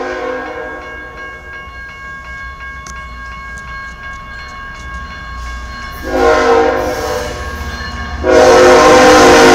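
Diesel locomotive air horn on an approaching freight train, sounded for the grade crossing. It is a sustained chord that starts distant and faint, swells briefly about six seconds in, and becomes loud and steady from about eight seconds as the train nears.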